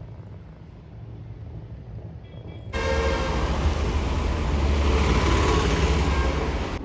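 Steady city traffic hum, low at first, then abruptly much louder and fuller about three seconds in.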